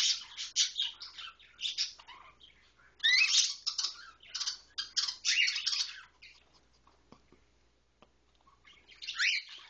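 Days-old cockatiel chicks chirping in quick runs of short high peeps, busy for the first two seconds and again from about three to six seconds, then falling almost quiet before a few more chirps near the end.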